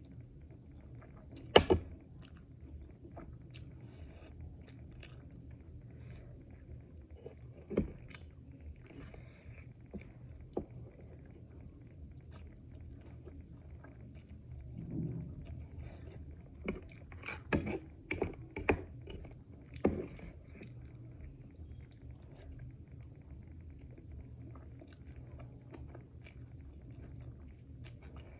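Eating sounds of chewing and biting, with scattered sharp clicks, the loudest one about a second and a half in and a cluster of them in the second half, over a low steady hum.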